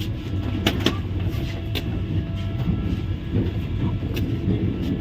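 Vande Bharat Express train noise: a steady low rumble with a few scattered sharp clicks and knocks.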